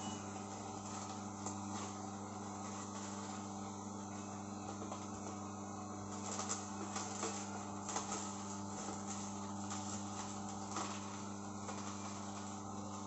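Hurom DA1000 slow juicer's electric motor humming steadily while its auger crushes celery, with scattered crackles and snaps that get louder and come closer together about six to eight seconds in.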